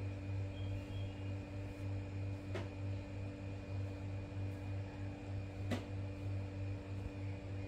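Steady low hum of a running machine, with faint higher steady tones over it. Two faint clicks, about two and a half and nearly six seconds in.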